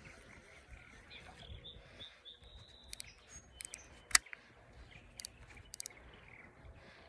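Small birds chirping, with a handful of sharp clicks, the loudest about four seconds in.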